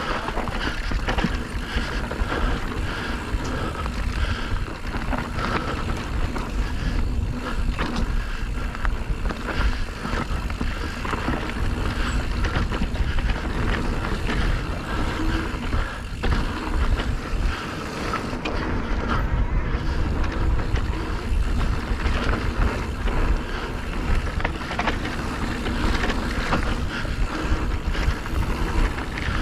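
Electric mountain bike riding a rough dirt trail: steady wind buffeting on the microphone, with many short knocks and rattles from the bike over the ground.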